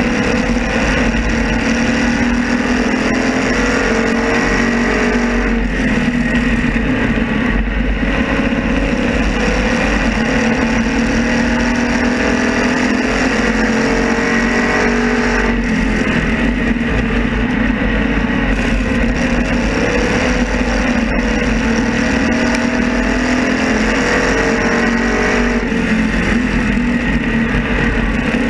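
Race car engine heard from on board at racing speed, its pitch climbing and dipping repeatedly as the car accelerates and backs off, over a steady low rumble.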